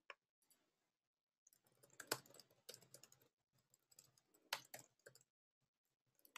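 Faint computer keyboard typing: quick runs of key clicks in two spells of a couple of seconds each, with a short pause between them.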